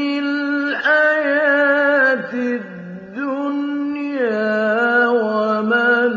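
A man's voice reciting the Quran in the slow, melodic mujawwad style, drawing out long held notes with ornamented turns in pitch. The voice dips lower and softer near the middle, then rises again before settling on a lower note.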